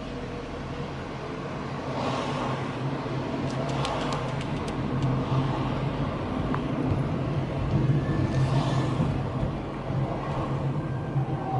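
A car driving slowly through city streets: a steady low engine and road hum with tyre noise, swelling twice as traffic passes. A quick run of light clicks comes about four seconds in.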